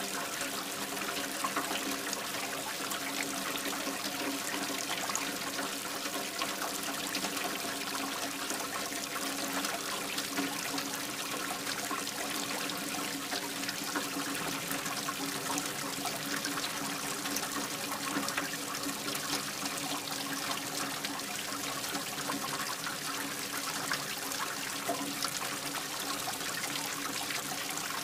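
Waterfall: a steady, unbroken rush of falling water splashing into a pool.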